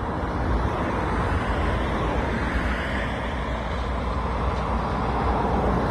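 Steady road traffic noise from a highway, with a constant low rumble underneath and no distinct single event.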